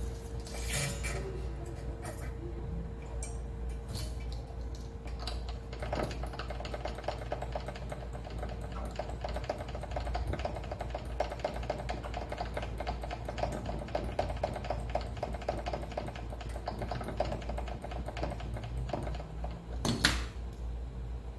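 A fast, even run of small clicks or rasps from hand-tool work, lasting about thirteen seconds, then a sharp knock near the end.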